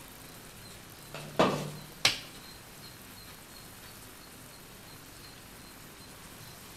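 Two sharp clinks about a second and a half in, two-thirds of a second apart, each ringing briefly: a glass cooking lid being set down after being lifted off the pan. Otherwise faint room tone.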